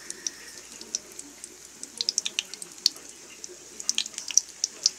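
Hotdogs frying in oil in a pan: a steady sizzle with irregular sharp crackles and pops of spattering oil, bunching into quick runs about two and four seconds in.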